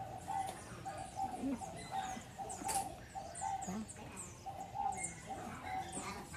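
Birds calling: one repeats a short mid-pitched note about twice a second, while others give quick high chirps.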